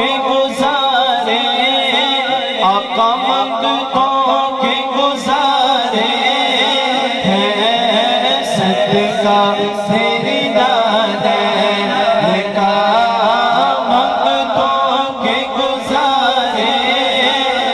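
A man singing a naat into a microphone, his voice amplified and wavering through long ornamented phrases over a steady low drone.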